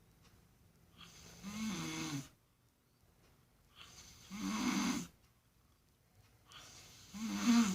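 Baboon snoring in sleep: three loud snores about two and a half to three seconds apart, each starting softly and swelling into a low rasp. The last one, near the end, is the loudest.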